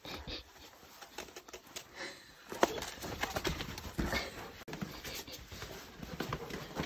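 Irregular clicks, taps and scrapes of a dog and a person scrambling over sandstone rock: claws and shoes scraping and knocking on the stone, with clothing rustle. The sharpest knock comes about two and a half seconds in.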